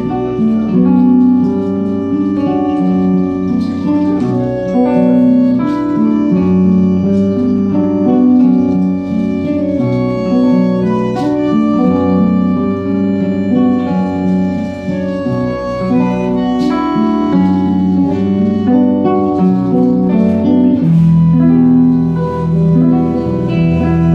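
Live tango music from a small instrumental band, with long held notes over sharply attacked ones and no pause.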